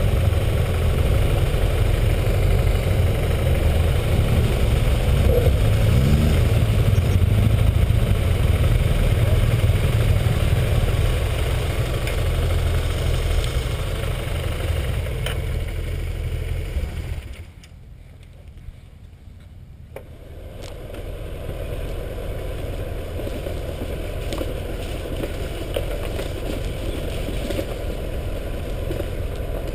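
BMW GS parallel-twin motorcycle engines idling, with a short rising rev about five seconds in. The sound drops away briefly. When it returns, a bike is running along a gravel track.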